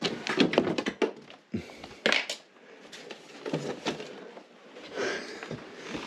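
Rummaging through a heap of junk: cardboard boxes, paper and plastic items rustling, shifting and clattering in several bursts.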